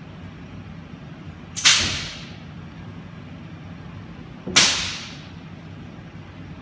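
Two short, sharp hisses of compressed air, just under three seconds apart, each fading away over about half a second: air exhausting from the valve of the robot arm's custom pneumatic gripper each time the gripper actuates.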